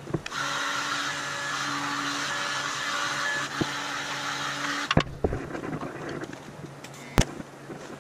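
TIG welding arc on steel frame tubing, a steady hissing buzz with a faint hum that stops about five seconds in. Sharp metallic knocks follow, the loudest near the end.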